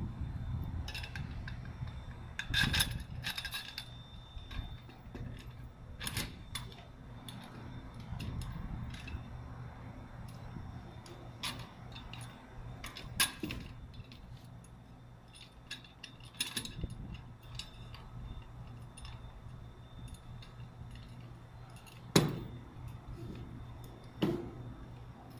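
Scattered metallic clinks and knocks as a trampoline's steel enclosure pole and its bolts are handled and fitted against the frame leg, the sharpest knock coming near the end, over a steady low hum.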